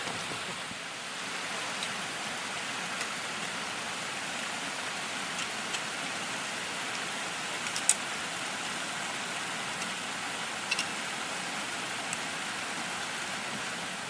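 Steady rush of a mountain stream running over rocks, with a few sharp clicks on top, the loudest about eight seconds in.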